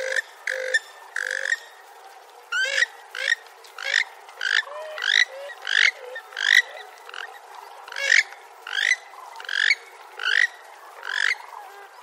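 Purple swamphen calling: a few short calls in the first second and a half, then after a brief pause a long, even series of calls that each rise in pitch, about three every two seconds.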